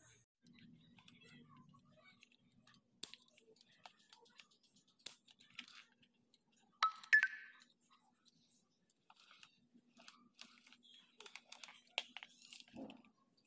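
Faint, scattered snips and clicks of hand cutters trimming the woody branch stubs of a hibiscus bonsai. There is a louder crunching cut about seven seconds in and a short knock near the end.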